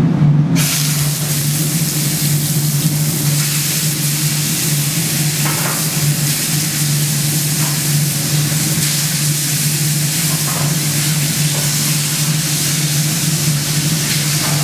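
Soy-marinated beef short ribs sizzling as they sear in a hot frying pan on a gas range, starting about half a second in and holding steady. A steady low hum runs underneath.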